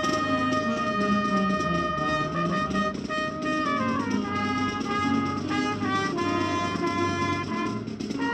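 Marching band playing the national anthem, brass and woodwinds in long held notes over a slow melody that moves to new notes around the middle.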